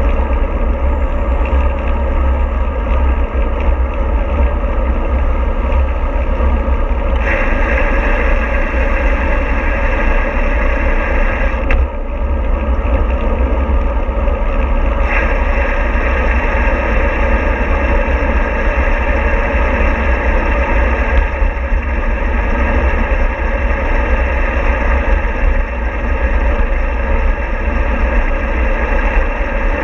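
A vehicle running steadily: a deep, continuous rumble under a hiss of travel noise. The hiss gets louder about seven seconds in and again about fifteen seconds in, with a brief click around twelve seconds.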